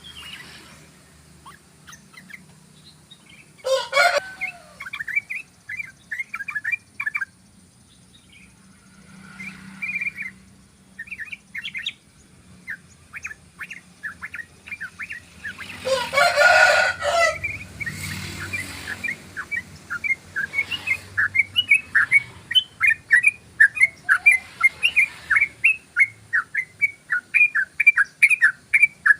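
Sooty-headed bulbul (trucukan) singing in phrases of quick, short chattering notes, becoming a long, fast, unbroken stuttering run (its 'ropel' song) for the last third. Two louder, harsher calls break in, briefly about 4 seconds in and for over a second around 16 seconds in.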